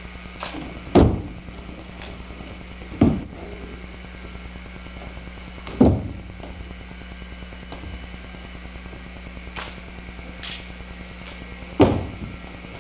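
Heavy thuds of a monk's feet stamping and landing on a wooden floor during a Sunmudo martial-arts form: four loud ones spaced irregularly, with a few fainter ones between.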